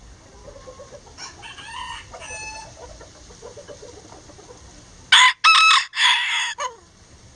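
A Lavender Self Blue Old English Game bantam rooster crows loudly and close, about five seconds in: one crow broken into several parts. A fainter crow comes about a second in, with soft clucking around it.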